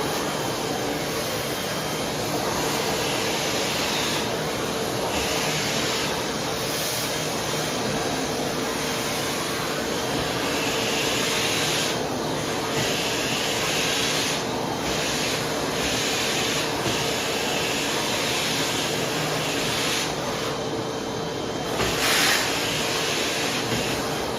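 Vacuum cleaner running steadily with a constant motor whine, its hiss swelling and dropping every second or two. There is a brief louder surge about 22 seconds in.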